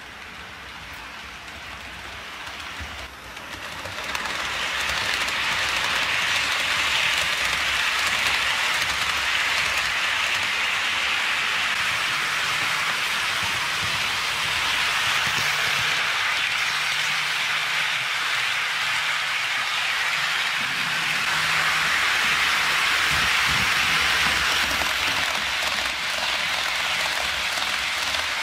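HO scale model freight train rolling on sectional track, behind a Norfolk Southern ES44AC model locomotive: a steady hiss of wheels on the rails that grows louder about four seconds in.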